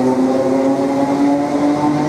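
Electric multiple-unit passenger train moving past, its traction motor whine a set of tones slowly rising in pitch as it gathers speed, over the rumble of the wheels on the rails.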